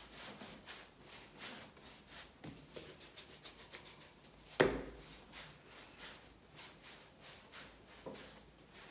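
Hands pressing and rubbing bread dough out on a floured countertop, a faint repeated rubbing, with one sharp knock about halfway through.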